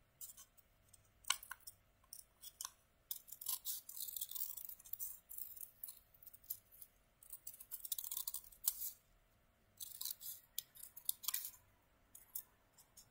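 Small scissors snipping through folded yellow paper, cutting out a shape: runs of quick, irregular snips broken by short pauses.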